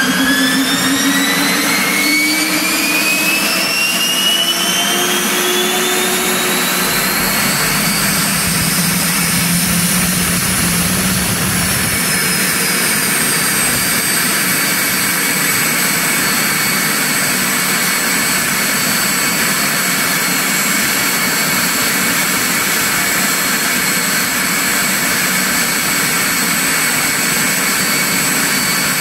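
Turbomeca Turmo C6 turbine engine on a test stand spooling up, its whine rising in pitch for about the first ten seconds. It then dips slightly and settles to a steady high whine over a rushing roar as the engine holds speed.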